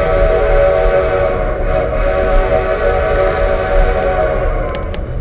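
A steam locomotive's whistle blowing one long, steady blast of several notes at once, dying away near the end, over the low rumble of the train running.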